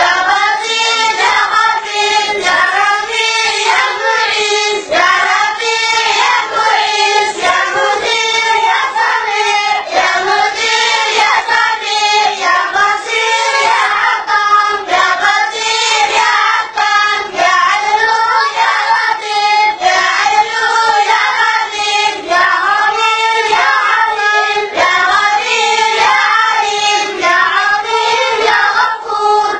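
A group of boys singing together in unison, a rhythmic chant of short rising-and-falling phrases that repeat without pause.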